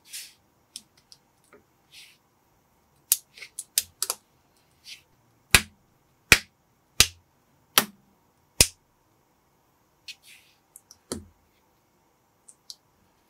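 Plastic building bricks being handled and snapped together by hand: scattered small clicks and rustles, with a run of five sharp, loud clicks about three-quarters of a second apart in the middle.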